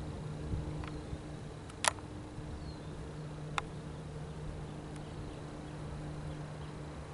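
Steady low drone of a distant Airbus A330-223 jetliner's engines passing overhead, with two sharp clicks about two and three and a half seconds in.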